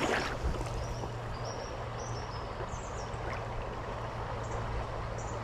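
A small creek flowing steadily, with a few short, high bird chirps in the first half.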